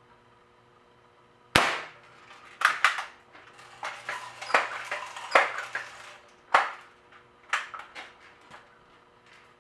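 Crosman Remington R1100 multi-pump air rifle being worked and fired: a sharp crack about one and a half seconds in, then runs of mechanical clicks and clacks from the action, another sharp crack past halfway, and a few last clicks.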